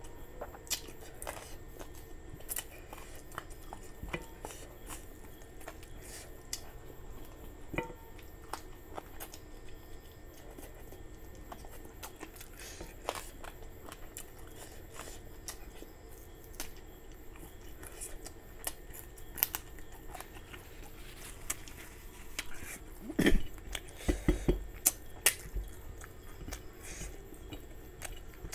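Close-up eating sounds from a person eating chicken curry and rice by hand: chewing and small mouth sounds, with scattered short clicks as fingers pick food off the plate. A burst of louder knocks comes about 23 seconds in.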